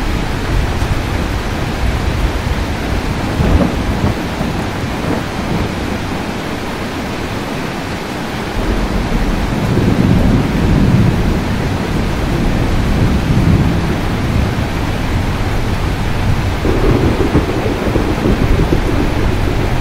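Steady rain falling with rolling thunder. A deep rumble of thunder swells about halfway through and another comes near the end.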